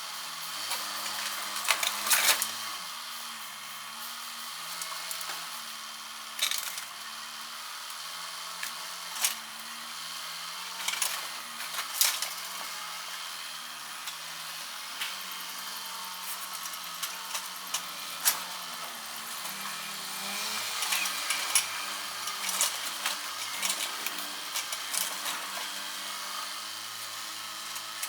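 Excavator engine running, its pitch rising and falling with the load, broken by sharp cracks and crashes of material breaking several times, loudest about two seconds in.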